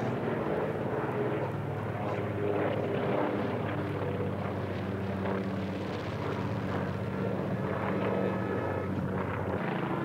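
Twin radial-engine propeller plane flying past overhead with a steady engine drone.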